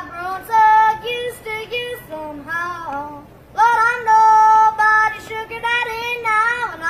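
A young boy yodeling, his voice flipping abruptly back and forth between low chest notes and high falsetto notes, with two long held high notes.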